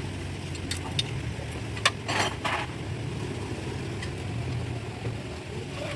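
A steady low engine hum, with a few sharp metallic clinks and knocks in the first two and a half seconds.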